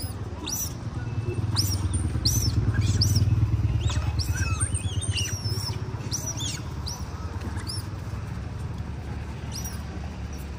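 Macaques squabbling over food, giving many short, high-pitched squeaky calls, over a steady low engine rumble that swells about two to four seconds in.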